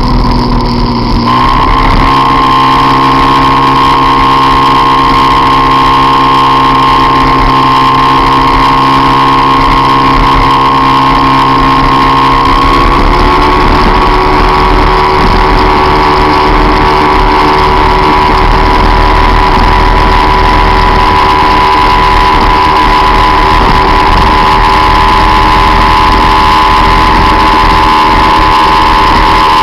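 Peugeot Jetforce Compressor scooter's supercharged engine running steadily at speed under load. About a second in the note dips briefly and then climbs back, and about halfway through the pitch steps up a little and holds there.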